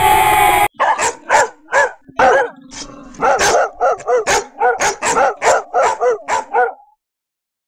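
A dog barking in a quick run of short barks, about fifteen of them over some six seconds. It comes just after the intro sound effect cuts off suddenly.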